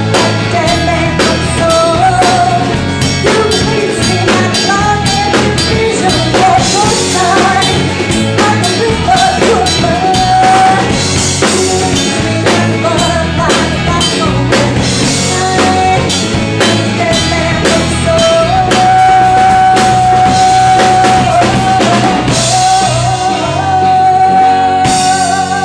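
Live rock band playing: a woman sings lead over a drum kit, electric guitar and bass, holding long notes in the last third.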